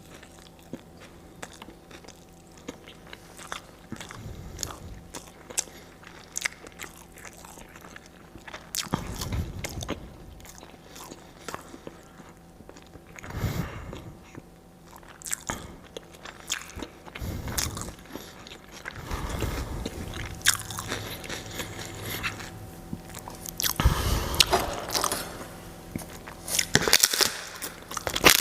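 Close-up eating sounds: a person biting and chewing food, with crisp crunching clicks and several louder bouts of chewing at irregular intervals.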